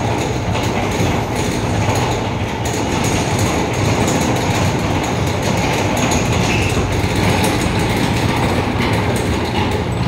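Earthquake simulator platform shaking: a steady loud rumble with continuous rattling and clicking.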